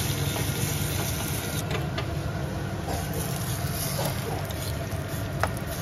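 A tempering of onion and garlic frying in a small pan on a gas burner, over a steady low hum, while a silicone spatula stirs it and scrapes it out over a pot of baingan bharta. A sharp clink of utensil on metal comes near the end.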